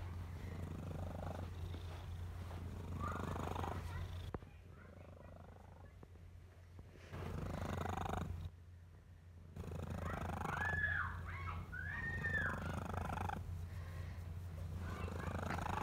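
Orange-and-white tabby cat purring close up as it is stroked, in long stretches with a couple of short breaks. About eleven and twelve seconds in come two short, high, rising-and-falling calls.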